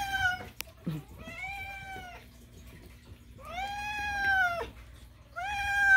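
A domestic cat meowing repeatedly: four long, drawn-out meows, the first ending just after the start, two in the middle and the last starting near the end. The cat is begging to be fed.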